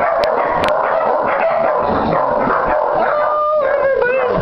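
Several hound puppies howling and yipping at once, their high calls overlapping and sliding in pitch.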